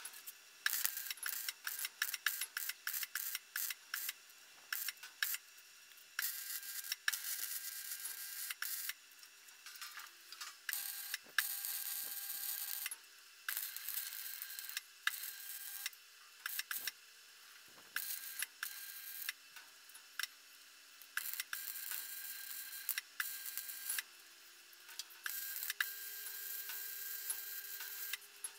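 Electric arc welding on 2 mm mild steel sheet: a quick series of short crackling bursts as the sheet is tacked down, then several longer stretches of steady crackling hiss, each a few seconds long, as short welds are run, with pauses between.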